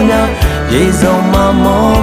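A man singing a Burmese song over full backing music with a steady beat.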